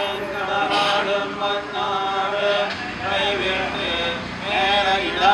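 A group of men chanting devotional hymns in unison, a slow sing-song recitation with long held notes that swells louder near the end.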